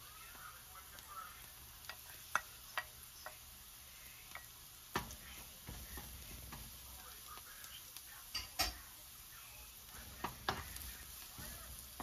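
Diced ginger and chopped onion frying in a nonstick wok, a steady sizzle under irregular clicks and knocks as a wooden spatula stirs and taps against the pan.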